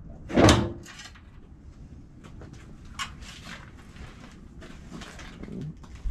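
The hood of a 1978 Buick Regal being lowered, coming down with one loud thud about half a second in, followed by a few faint clicks and knocks.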